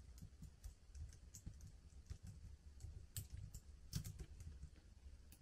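Faint typing on a laptop keyboard: irregular key clicks over a steady low hum.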